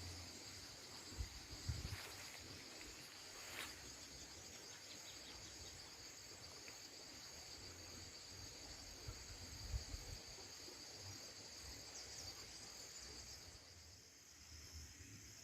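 Insects chirring steadily in a high, continuous trill, with a few faint low thumps about a second and a half in and again around ten seconds.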